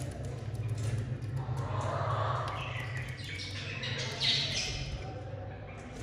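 Budgerigars chirping and squawking in short calls, over a steady low hum.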